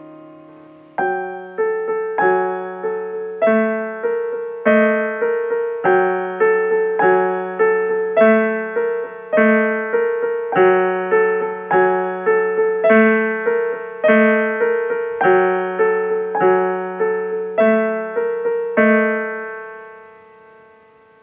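Piano playing a slow repeating figure of single struck notes, about two a second, after a held chord dies away; the last note rings out and fades near the end.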